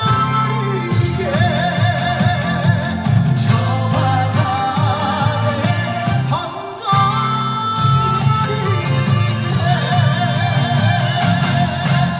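A male trot singer singing live over instrumental accompaniment, the voice held in long notes with vibrato, with a brief drop in the music about seven seconds in.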